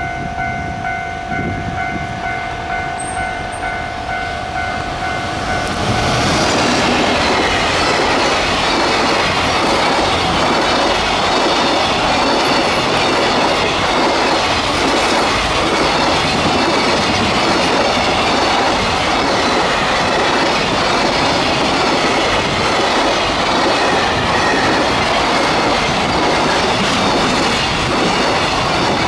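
A container freight train hauled by an EF210 electric locomotive passing close by. A steady high tone sounds for about the first six seconds. From about six seconds in comes the loud, continuous rumble and clickety-clack of the container wagons' wheels on the rails.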